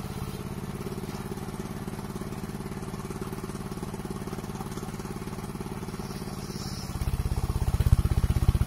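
Engine of a mobile circular sawmill running with an even, rapid pulse. It gets louder about seven seconds in.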